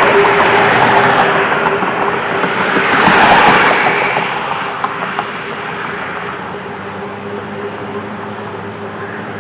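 Road traffic: vehicles passing close by, loudest in two swells in the first four seconds, then easing off to a steadier, quieter hum with a faint steady tone under it.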